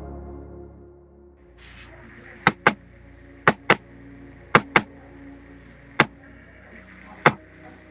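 A series of sharp, hard knocks, mostly in quick pairs and then two single ones, over a faint hiss.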